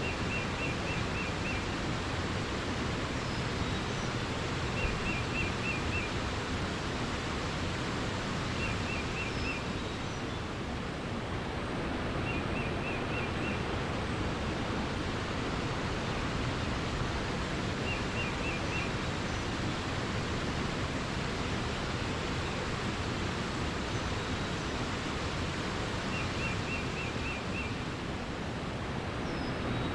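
Steady rush of running water, with a songbird repeating a short phrase of about five quick notes every few seconds and a few faint higher chirps.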